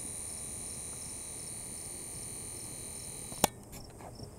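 Faint insects: a steady high-pitched trill with softer chirps repeating several times a second, and one sharp click about three and a half seconds in.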